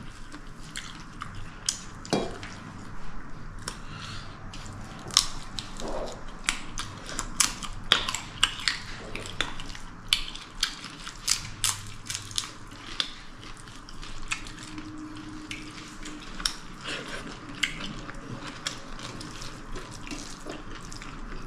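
Close-up eating sounds: irregular wet clicks and smacks of chewing and of food being handled at the plate.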